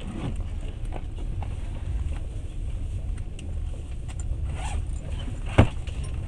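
Steady low rumble of a moving passenger train heard from inside the carriage, with scattered light clicks and one sharp knock about five and a half seconds in.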